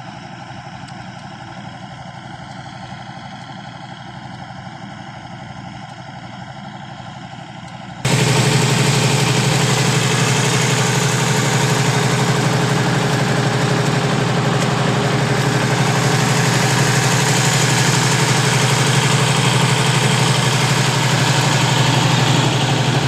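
Kubota combine harvester's diesel engine running steadily, at first quieter and duller. About eight seconds in the sound switches abruptly to much louder, closer running with a strong low hum.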